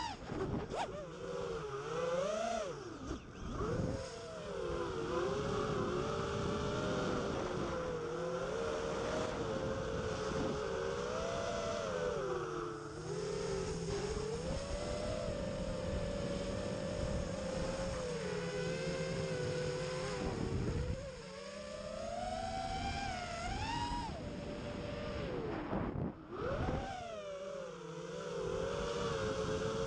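Win5 FPV quadcopter's motors and propellers whining as heard from the onboard camera, the pitch rising and falling with the throttle. About two-thirds of the way through, and again near the end, the pitch drops away briefly as the throttle is cut, then climbs again.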